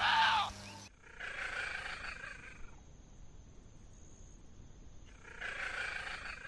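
A loud, short call from a Chinese water deer ends just before a second in. It is followed by two calls from a leopard cat, each about a second and a half long, with a quiet gap of a few seconds between them.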